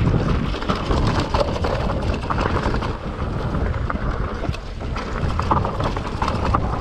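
Mountain bike rattling down a rough, rocky trail: tyres on stones and dirt, with many small knocks and clatters from the bike, and wind rumbling on the microphone.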